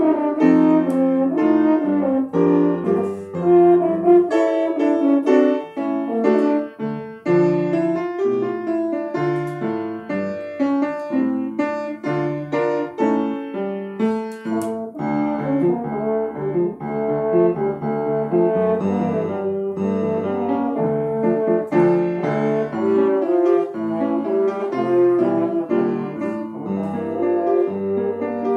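French horn playing a melody over piano accompaniment, moving from note to note without a break.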